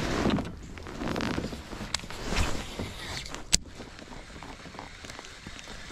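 Handling noises from a baitcasting rod and reel in a plastic kayak: short rustles and knocks, then one sharp click about three and a half seconds in.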